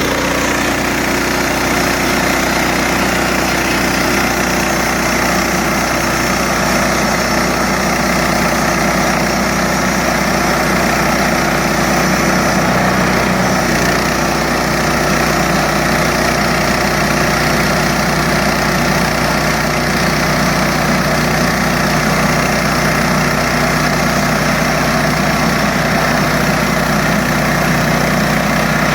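Gasoline engine of a Harbor Freight band sawmill running steadily, with a slight shift in its pitch about halfway through.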